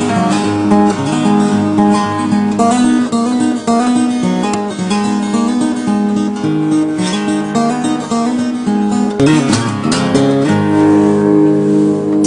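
Acoustic guitar music, strummed and picked, with a quick run of strums about nine seconds in before a sustained chord.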